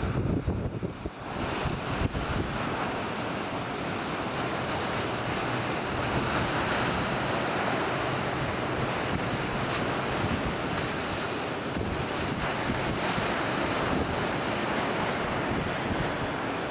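Ocean surf breaking and washing in a steady hiss, with wind buffeting the microphone in low gusts, heaviest in the first couple of seconds.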